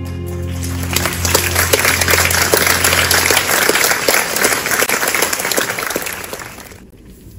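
Audience applauding as the last chord of a grand piano piece rings on underneath and fades out; the applause stops abruptly near the end.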